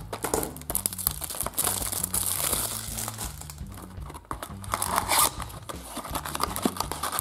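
Crinkling and tearing of a Happy Box surprise's packaging being opened by hand, in irregular flurries.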